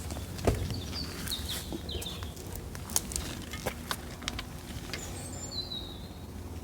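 Small birds chirping in short high calls, one longer falling call about five seconds in, with a few sharp clicks or knocks over a steady low hum.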